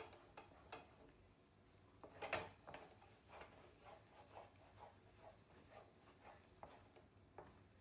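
A spoon stirring and scraping a thick barfi mixture around a kadhai, nearly done and coming away from the pan's sides. Faint short scrapes come a few times a second, with one louder scrape a little over two seconds in.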